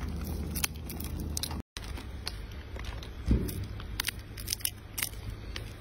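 A rhesus macaque cracking and chewing peanuts in the shell: scattered sharp clicks and crunches, with one low thump a little past halfway.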